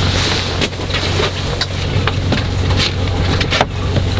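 A steady low mechanical hum with scattered sharp clicks and knocks as the flagstaff and its fittings are handled.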